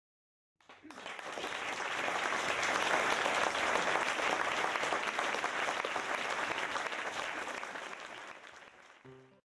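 Audience applauding, swelling over the first couple of seconds, then fading away near the end.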